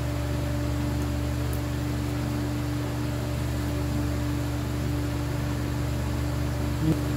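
A steady low mechanical hum with a constant hiss, like an appliance or fan running, with one short knock near the end.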